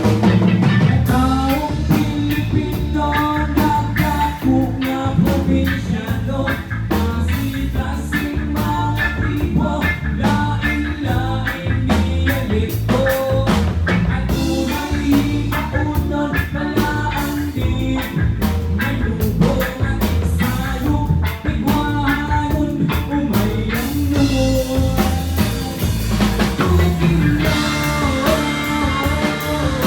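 A band playing live: a rock song with drum kit and electric guitar over a steady beat, with a melody line on top.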